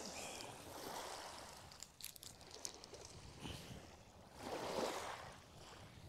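Faint river water washing and lapping against the bank, swelling twice, with a few small clicks about two seconds in.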